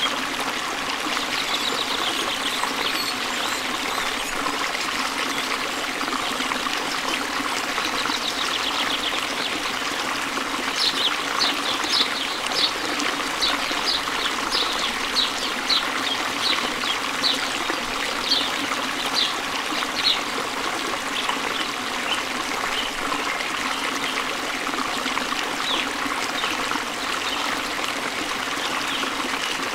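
Steady trickling of running water, with a bird giving a run of short, high, falling chirps, about two a second, through the middle stretch.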